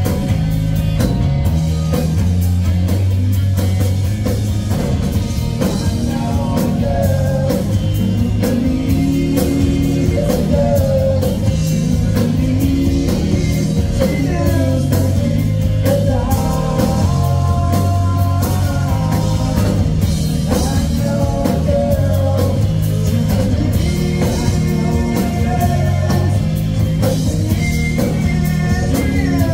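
Live rock band playing: electric guitar, bass and drum kit, with sung vocals over the top, loud and continuous.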